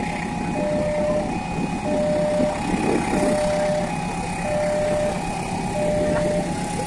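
Railway level-crossing warning alarm sounding its electronic two-tone signal, a low and a high tone taking turns about every two thirds of a second, over a steady rumble of traffic and the approaching train. It signals that a train is coming and the crossing is closed.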